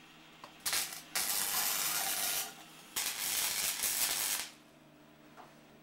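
Electric arc welding on steel: three runs of crackling, hissing arc, the first short and the next two about a second and a half each, with brief pauses between, over a faint steady low hum.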